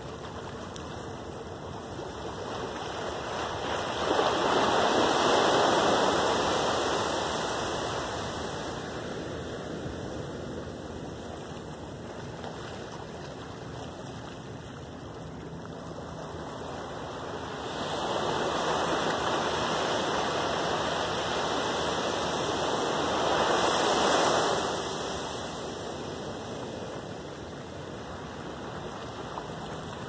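Small ocean waves breaking and washing up on a sandy beach, a steady wash that swells twice: once about four seconds in and again from around eighteen to twenty-five seconds in.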